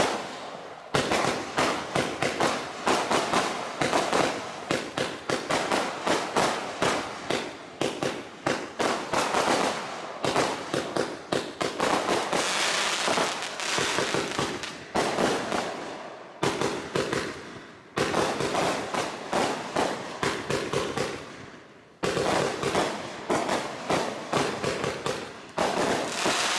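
Bright Star 'Collision Course' 54-shot fan barrage firework cake firing in rapid volleys of sharp shots, several a second, broken by a few brief pauses. Around the middle the shots blur into dense crackling from the crackling-star effects.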